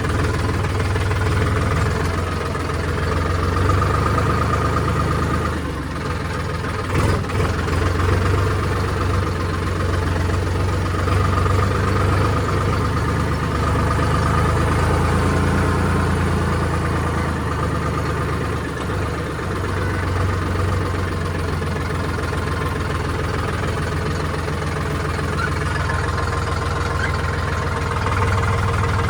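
Vehicle engine idling steadily with a low, even hum. A few knocks sound about seven seconds in.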